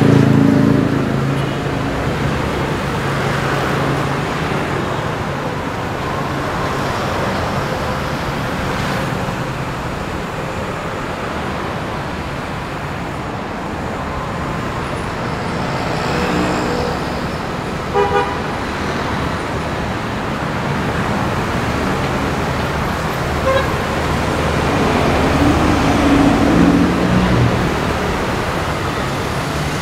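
Steady city street traffic with vehicles passing close by. A vehicle horn gives two short toots about 18 seconds in.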